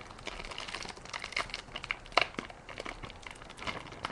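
Foil trading-card pack wrapper crinkling and crackling in irregular bursts as it is torn open by hand and the cards are pulled out.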